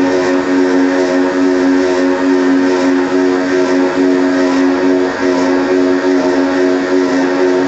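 Small electric gear motor of a model car-parking lift running steadily with a constant-pitch whine as it moves the parking platform.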